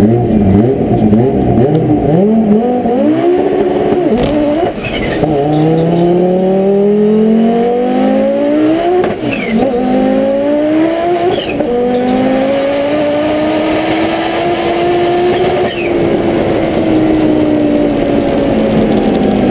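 Heavily modified turbocharged Audi S2 drag car heard from inside the cabin. The engine is blipped up and down, then at about four and a half seconds it pulls hard, its revs climbing through three gears with shifts at about 9 and 11.5 seconds. Near 16 seconds the driver lifts off and the revs fall away.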